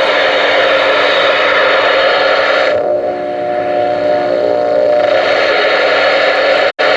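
Loud, steady hiss of static from a General HP40W ten-meter radio's speaker while it receives. Between about 3 and 5 s the hiss turns duller and a few faint steady tones come through. The noise cuts out for an instant near the end.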